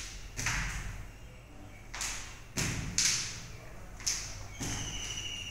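Feet landing on a tiled floor during repeated jump squats: several sudden thuds at irregular intervals of roughly half a second to a second and a half.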